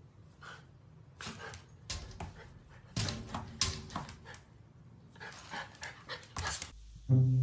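Golden retriever puppy giving a run of short, sharp puppy barks and pants in irregular clusters. Music with chiming notes comes in near the end.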